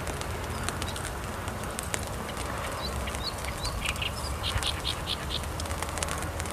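Light spring rain falling, with scattered drops ticking on leaves and grass. About three seconds in, a small bird calls with a few short high chirps, then a quick run of about five notes.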